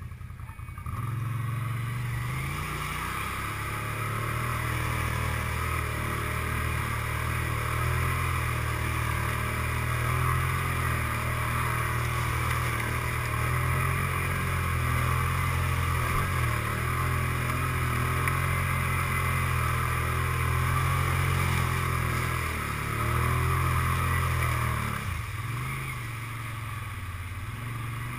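ATV engine running at steady throttle while the quad wades through a muddy pond, with water sloshing and spraying around it. The engine eases off briefly a couple of times and drops back a few seconds before the end.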